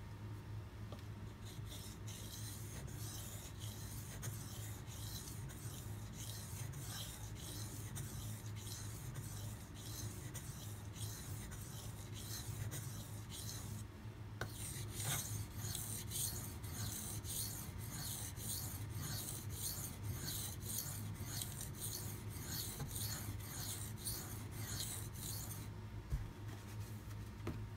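Steel knife blade rubbed back and forth across a sharpening water stone in a quick, even rhythm of strokes, grinding the edge bevel. The strokes pause briefly about halfway, then resume more strongly and stop shortly before the end, over a steady low hum.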